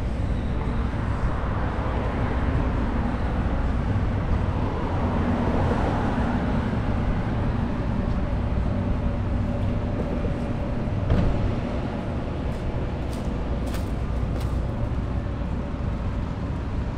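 Street traffic: a steady low rumble of car engines, with a vehicle swelling past a few seconds in and a sharp knock about eleven seconds in.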